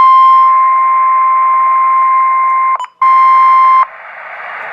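NOAA Weather Radio 1050 Hz warning alarm tone: one loud, steady tone with radio static beneath it. It drops out briefly about three seconds in, resumes, and cuts off under a second later, leaving only the hiss of static.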